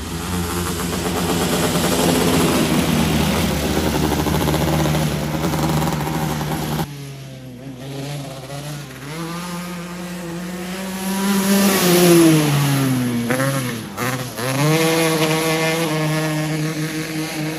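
A 270 micro sprint car's engine running laps on a dirt track. Its pitch holds steady at first. About seven seconds in, it climbs to a peak, drops away and then climbs again near the end.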